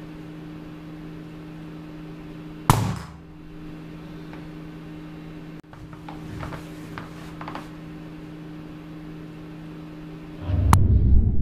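A DJI F450 quadcopter dropped from chest height hits a hard floor with a single sharp knock about two and a half seconds in, over a steady low hum. Near the end comes a loud, dull, low rumble with the higher sounds cut away, like an impact slowed down.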